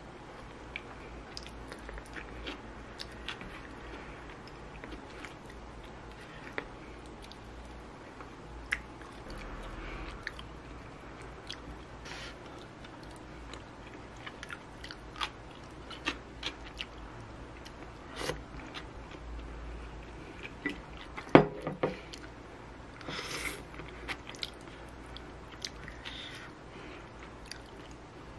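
Close-up eating sounds: chewing rosé tteokbokki rice cakes and rice balls, with scattered light clicks of chopsticks and a metal-tipped spoon against the plastic takeout tray. One sharp knock stands out about three-quarters of the way through.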